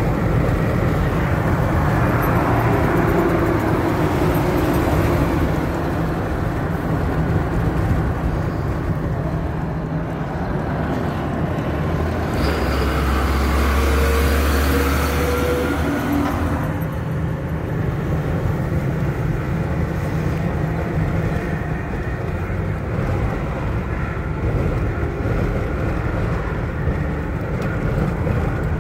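Steady road and wind noise of a car driving at highway speed, heard from inside the cabin. For about four seconds around the middle, the engine of a Ford F-650 service truck running alongside adds a deep, louder hum.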